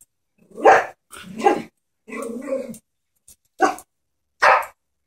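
A Chihuahua barking about five times in short, spaced yaps, one near the middle drawn out longer; it is barking warily at a stuffed toy horse that it is scared of.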